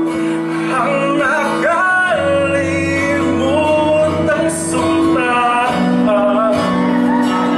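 A man singing, with several long held notes, into a handheld microphone over instrumental accompaniment.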